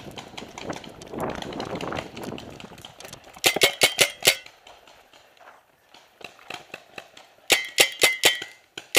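Hurried footsteps through dry fallen leaves for about three seconds. Then two rapid volleys of paintball marker shots, each a string of about seven or eight quick sharp pops with a short ring. The first volley comes about halfway through, the second near the end.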